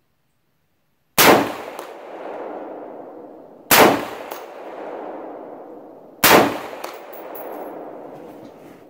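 AR-15 rifle chambered in .223 Wylde firing three shots about two and a half seconds apart, each with a long echoing tail. About half a second after each shot comes a faint ping of the bullet striking a steel target.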